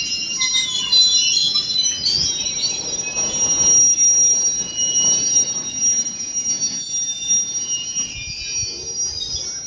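Train wheels squealing against the rails as a train moves slowly through the station: a sustained high-pitched squeal of several tones over a low running rumble that swells and then fades a little toward the end.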